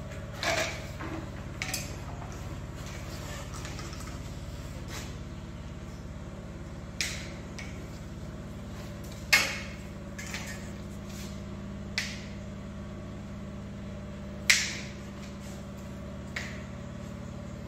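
Scattered sharp knocks and clicks from work on a ladder, handling a long white plastic cable conduit against the wall, over a steady low hum. The two loudest knocks come about halfway through and again later on.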